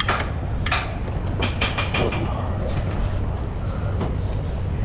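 Steady low hum with scattered sharp clicks and clanks, from tools at work on a car's front strut assembly.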